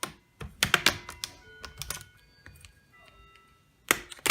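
Plastic laptop screen bezel clips snapping and clicking as the bezel is pried off with a small screwdriver: a quick cluster of snaps in the first second, then two loud snaps near the end.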